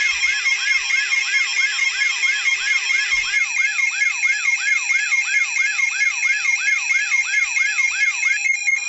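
Layered electronic emergency alert alarm: a fast siren-like yelp sweeping up and falling back about three times a second, over steady and pulsing high beeping tones. A low pulsing buzz drops out a few seconds in. The yelping sweep stops near the end while the high beeping tones carry on.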